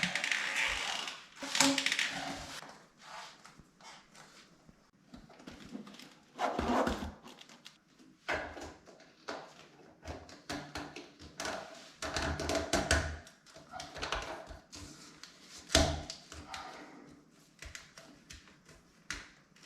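Knocks, clicks and scraping of sink plumbing fittings being handled and fitted by hand, with a few louder clunks spread through.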